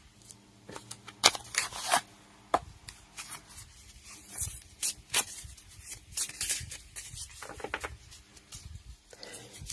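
A tarot deck being shuffled and handled by hand: irregular clicks and rustles of cards against each other.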